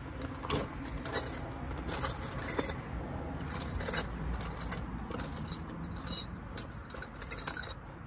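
Small metal pieces clinking and jangling as they are handled and rummaged through: a run of irregular sharp clinks over a low steady rumble.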